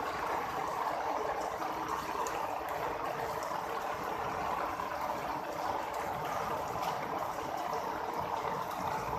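Steady flowing water, an even rushing with no change.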